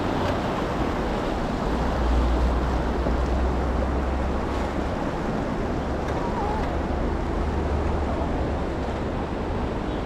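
Fast, shallow mountain river rushing over rocks around an inflatable raft, a steady noise of running water with a low rumble underneath.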